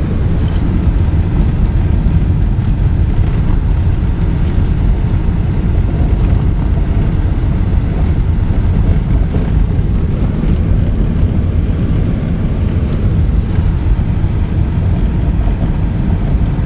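Steady low drone of a car driving on snow-covered roads: engine and tyre noise heard from inside the cabin.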